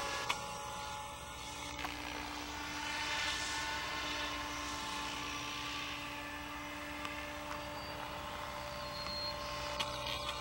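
Radio-controlled Protos Max V2 helicopter, an electric model, flying high overhead: a steady motor whine and rotor hum that swells and fades a little as it moves.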